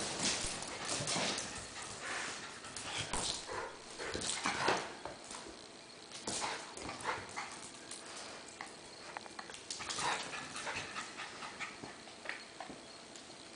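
Two small dogs, a Havanese and a westiepoo, playing over a plush toy: short dog noises mixed with scuffling and quick clicks of paws on a hardwood floor, busier in the first half.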